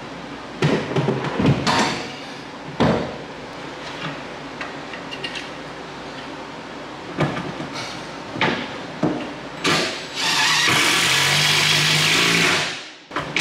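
Knocks and clunks of a wall cabinet being shifted and held against the wall, then, about ten seconds in, an impact driver runs for about three seconds, driving a lag bolt through the cabinet into a wall beam.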